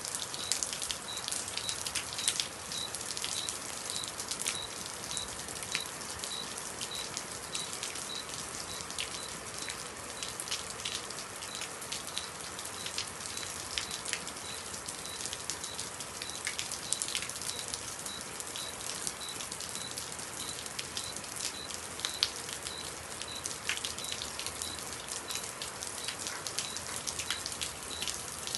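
Heavy rain falling steadily, many drops splattering sharply on a hard surface. A faint high chirp or beep repeats about twice a second under it.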